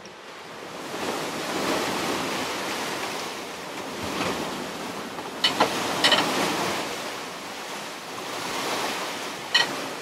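Wind and breaking waves rushing past a sailing yacht under way in rough open sea, swelling and easing, with wind buffeting the microphone. A few sharp knocks come in the second half.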